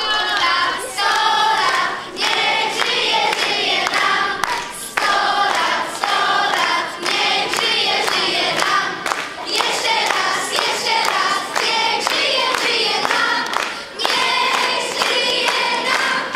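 A group of children singing together, with hands clapping along in a steady beat.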